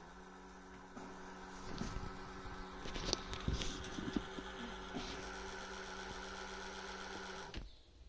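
Spindle motor of a small cast-bodied tesbih (prayer-bead) lathe running at lowered speed with a steady hum, a few clicks and knocks about two to four seconds in. It cuts off abruptly shortly before the end.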